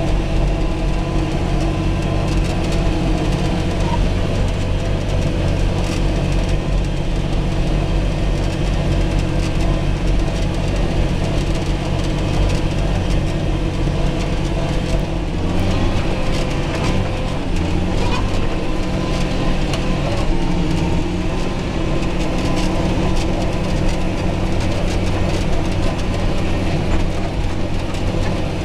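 John Deere 8320 tractor's six-cylinder diesel engine running steadily under load while pulling a disc harrow, heard from inside the cab, with light rattles throughout. Around the middle the engine note shifts slightly.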